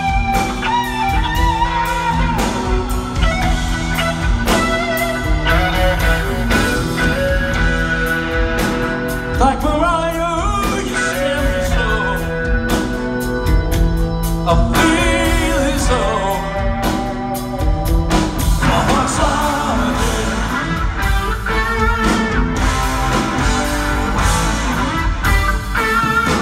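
Live rock band playing: electric guitars, bass guitar and drum kit, with a lead vocal over them.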